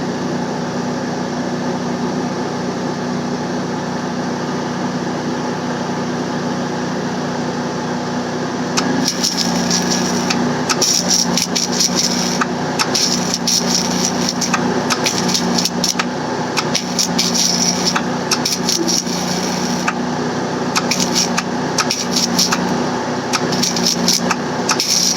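A small engine running steadily; from about nine seconds in, rapid irregular crackling and clicking joins it and is the loudest part.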